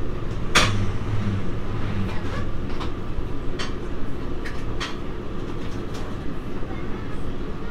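Onboard sound of a Nippon Sharyo diesel multiple unit running at speed: a steady low drone and rumble, broken by irregular clicks and knocks of the wheels over the track. A sharp knock about half a second in is the loudest.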